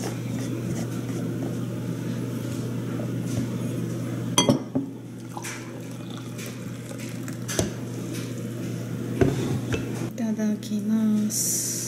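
Clinks and knocks of a glass French press and a ceramic cup on a wooden table as green tea is poured, the sharpest knock about four seconds in. A steady low hum runs underneath, and a short voice sound comes near the end.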